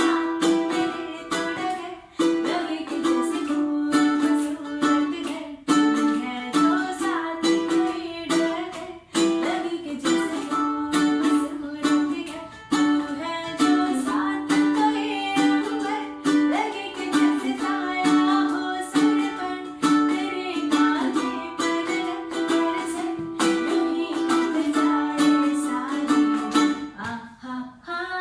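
A woman singing with long held notes, accompanied by a strummed ukulele.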